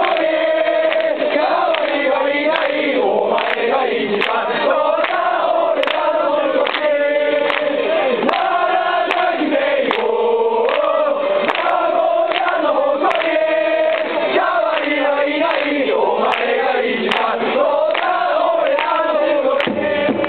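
Football supporters singing a player chant in unison, a large crowd of voices carrying a repeating melody at full voice.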